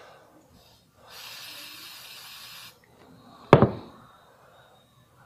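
One burst of aerosol anti-rust spray, a steady hiss lasting about a second and a half. About a second after it stops, a single sharp knock.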